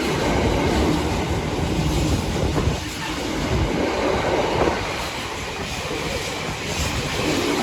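Freight train of HS2 tunnel segment wagons, hauled by a Class 66 diesel locomotive, rolling past at close range: a loud, continuous rumble and rattle of wheels on the rails.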